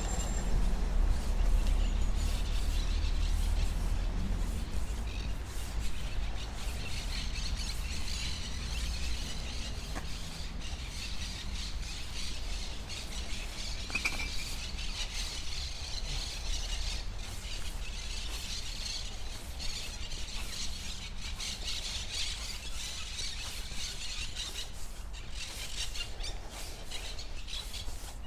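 Birds chirping and calling in the trees, a dense twittering that goes on steadily, over a low rumble that is heaviest in the first few seconds.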